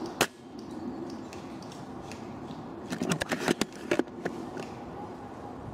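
Tokyo Marui VSR-10 G-Spec spring-powered bolt-action airsoft rifle firing once: a single sharp crack just after the start. About three seconds in comes a quick burst of sharp clicks and knocks.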